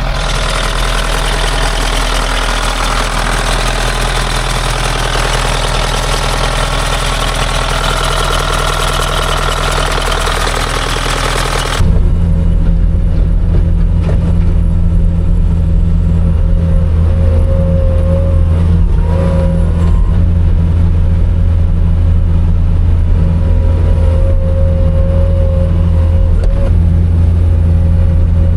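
Diesel engine of a loader running steadily just after a cold start, with a belt making some noise that is expected to go out this winter. About 12 seconds in the sound cuts abruptly to a louder, deeper steady engine drone.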